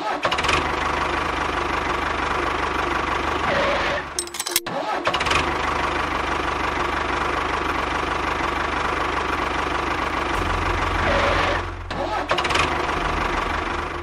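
Tractor engine starting and running steadily, cutting out briefly about four and a half seconds in and then starting up again.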